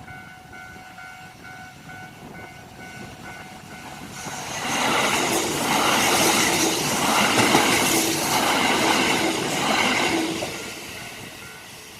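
An electric train passes over a level crossing. The sound of its running and its wheels builds about four and a half seconds in, pulses with the clatter of wheels over rail joints, and fades away about ten and a half seconds in. Before the train arrives, a crossing bell rings faintly in a steady repeating pattern.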